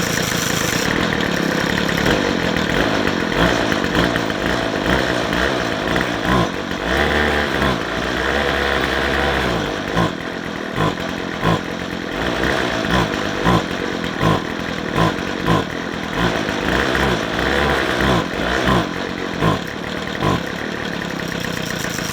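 McCulloch 250C XL strimmer's two-stroke engine running and being revved, but instead of picking up it goes bop, bop, bop in a regular stumbling beat and doesn't rev. It is starved of petrol, which the owner puts down to a blockage in the fuel filter or carburettor.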